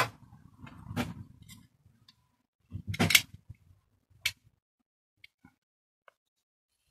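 A few sharp clicks and knocks as a plastic BMX pedal and hand tools are handled and set down on a workbench mat, the loudest about three seconds in.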